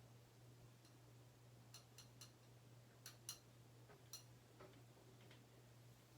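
Near silence: a steady low hum with a handful of faint, sharp clicks, a few around two seconds in, two a little after three seconds, and one near four seconds.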